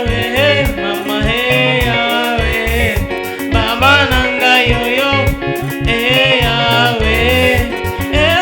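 Gospel music: voices singing over guitar and a steady beat.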